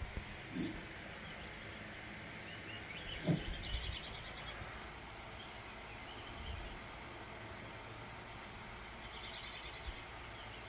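Small birds chirping in short bursts, played through a television from a bird-feeder video, over a steady low hiss. Two brief knocks, about half a second in and about three seconds in, are the loudest sounds.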